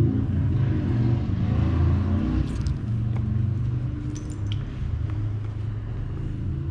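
A steady low rumble runs throughout, with a few faint clicks and rustles in the middle as grease is worked onto a propeller shaft and greasy hands are wiped on a rag.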